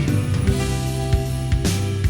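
Background music with a steady drum beat, a bass line and sustained instrument notes.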